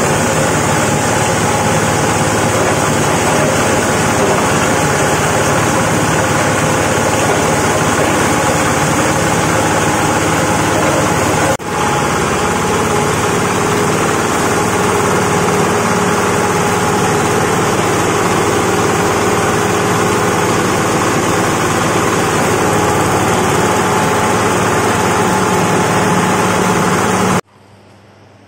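Grinding machine for corn cobs and dry peanut stalks running loudly and steadily as it grinds material fed into its hopper, a dense mechanical din over a steady motor hum. It cuts off abruptly near the end.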